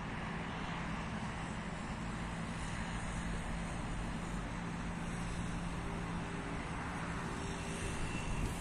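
Steady hum of distant road traffic, an even noise with a low drone that holds throughout.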